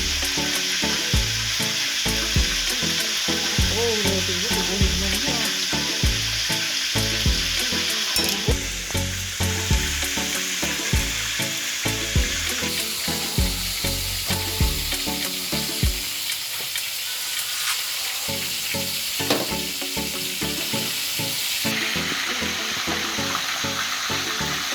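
Food sizzling as it fries in a pan of hot oil, while being stirred, with repeated knocks of the utensil against the pan.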